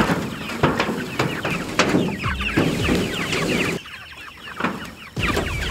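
A flock of white meat chickens in a chicken tractor, peeping and clucking in a busy stream of short, high, falling chirps. It goes quieter for about a second and a half near the end, then picks up again.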